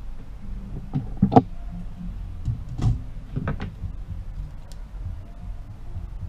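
A handful of knocks and clatters from tablet parts being handled and set down on a workbench, the loudest a little over a second in and again near three seconds, over a steady low hum.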